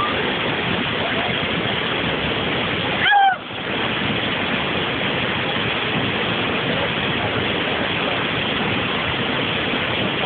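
Waterfall rushing steadily. About three seconds in comes a brief, loud, falling cry.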